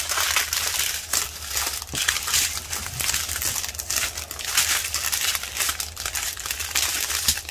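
Clear plastic bags of diamond-painting resin drills crinkling and rustling as they are handled and shuffled across the table, a continuous run of crackly rustles.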